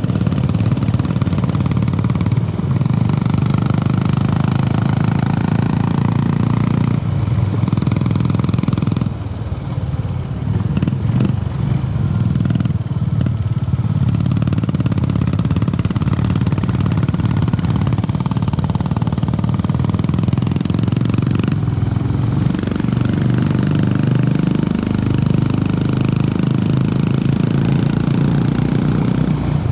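Honda CB350RS motorcycle's single-cylinder engine running steadily, easing off briefly about nine seconds in before picking up again.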